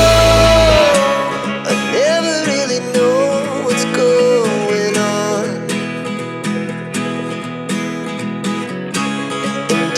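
Background pop song with acoustic guitar strumming under a wavering melody line. The deep bass drops out about a second in.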